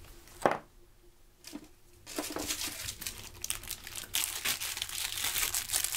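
Plastic packaging crinkling and rustling as fireworks are handled, a dense crackle that starts about two seconds in, after a short thump about half a second in.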